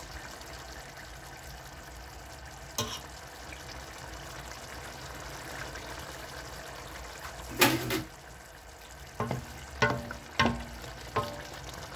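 Wooden spoon stirring carrot rounds through simmering sauce in a large stainless steel pot, over a steady hiss from the pot. A few short knocks of the spoon against the pot stand out, the loudest about two-thirds of the way through.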